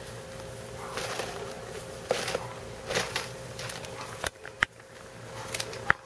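Scattered rustles, clicks and knocks from young puppies scrambling in the grass and bumping around a plastic bird crate, over a faint steady hum.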